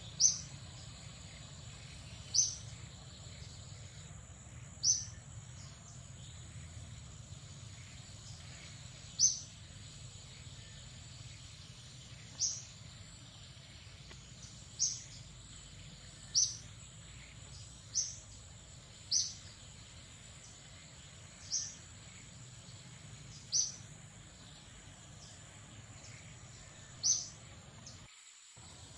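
Short, high-pitched animal chirps, about a dozen of them, each a fraction of a second long and coming every one to three seconds, over a steady thin high buzz like insects.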